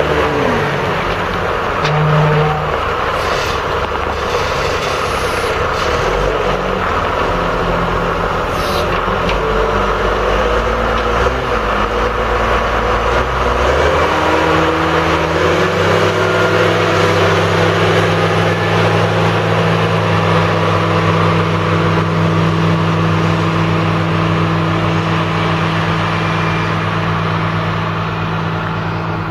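1998 John Deere 624H wheel loader's six-cylinder diesel engine running as the loader drives along. Its pitch shifts during the first half, then holds steady from about halfway on.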